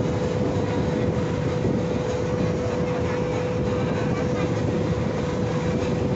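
Motorboat engine running steadily under way: a constant drone with a steady hum in it.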